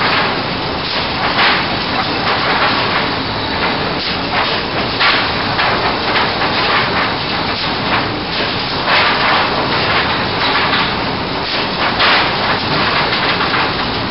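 Sawmill board-handling line running: a steady loud machine din with hiss, broken about once a second by clattering knocks as boards are moved along the lugged transfer.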